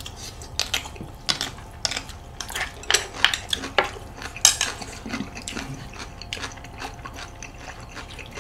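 Close-miked eating sounds: irregular sharp clicks of a spoon and chopsticks against dishes mixed with wet mouth sounds of food being spooned and chewed.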